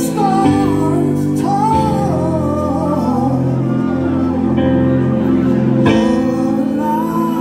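Man singing a slow ballad melody over a Korg keyboard playing held chords, which change a few times.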